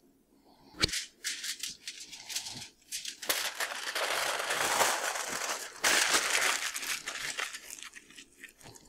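Aluminium foil crinkling and crumpling as it is folded and pressed around whole potatoes. It starts with a sharp crackle about a second in, is densest in the middle, and dies away near the end.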